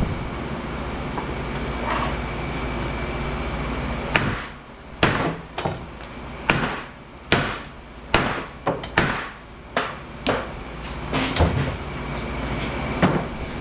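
Hammer blows on a steel transformer, about a dozen sharp strikes spread over several seconds, to crack the weld so that the copper winding can be got out. A steady machine hum runs underneath in the first few seconds.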